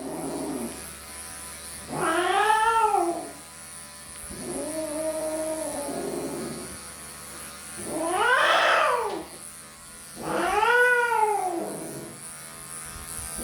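An elderly long-haired cat yowls four times in protest at being handled for clipping. Each call is long and drawn out, rising and then falling in pitch.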